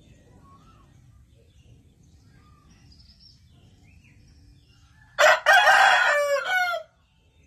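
A rooster crows once, loud and close, starting about five seconds in and lasting under two seconds, its pitch falling away at the end. Faint chirps come before it.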